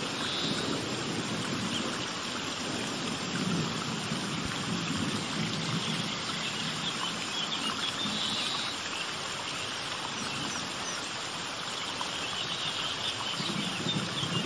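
Steady rushing of running water, like a stream, with faint bird chirps now and then.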